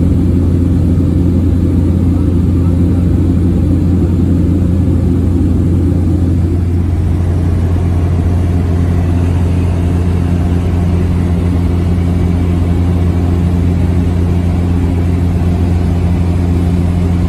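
Small high-wing passenger plane's engine and propeller drone heard from inside the cabin in flight: a loud, steady, low hum.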